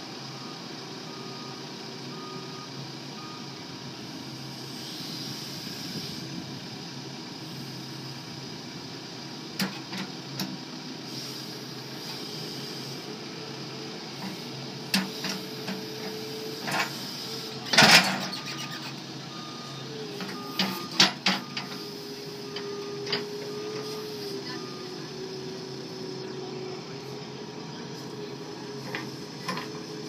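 New Holland B95C backhoe loader's diesel engine running steadily under a hydraulic whine that shifts in pitch as the boom and bucket are worked. Sharp metal clanks from the backhoe come in a string, the loudest about 18 seconds in, and an intermittent high beeping sounds near the start and again in the second half.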